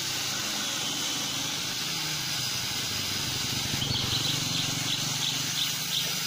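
Corded electric mini chainsaw of the angle-grinder type running steadily as it cuts into a wooden tree stump, its low hum growing stronger about halfway through as the chain bites in.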